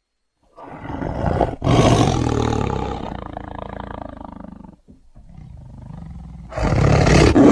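Big cat roaring. About half a second in a roar starts, swells, then fades; after a short break comes a quieter low rumble, and a second loud roar begins near the end.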